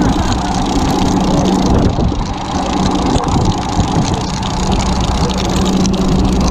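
Fishing boat's engine running steadily at idle, a constant low hum under a rushing haze of wind and water noise.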